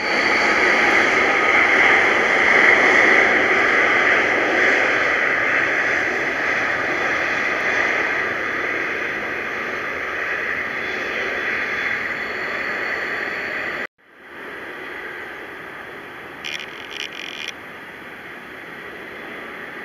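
Steady rushing noise of an Airbus A380's four jet engines as the airliner rolls along the runway, slowly fading. It drops out abruptly at a cut about 14 s in, then a quieter, similar rush continues as the jet taxis.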